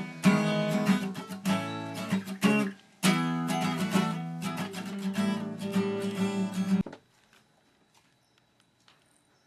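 Music: a guitar strumming chords, with a short break about three seconds in. It cuts off suddenly about seven seconds in, leaving faint room tone with a few small clicks.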